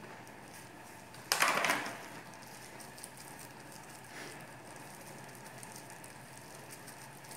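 Thin plastic crinkling briefly about a second in as a clear plastic clamshell strawberry container is handled, followed by a much fainter rustle a few seconds later.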